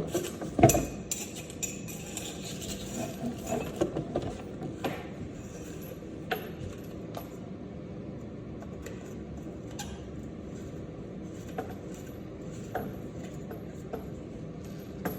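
Small metal faucet fittings clicking and clinking as they are handled and tightened onto the sink, with a sharper knock under a second in and scattered light taps after it.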